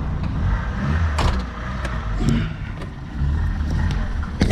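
Car engine running at low speed while the car is eased along, with a sharp click about a second in and a louder knock near the end.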